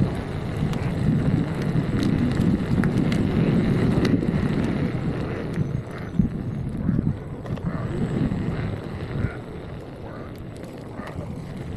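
Wind rumble buffeting the microphone while riding an electric unicycle, uneven throughout and easing off near the end.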